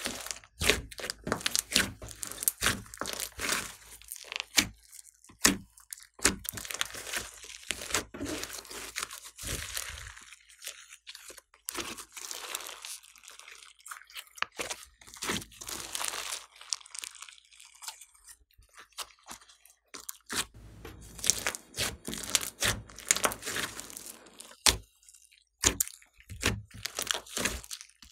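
Hands squeezing, pressing and stretching a big lump of glossy slime mixed with foam beads, making rapid, irregular sticky crackling and popping. It goes quieter for a few seconds past the middle, then picks up again.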